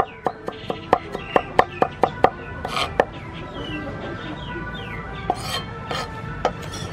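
Steel cleaver chopping minced garlic on a wooden cutting board: quick sharp strikes, about four or five a second for the first two seconds, then a few scattered chops in the second half. Background music plays underneath.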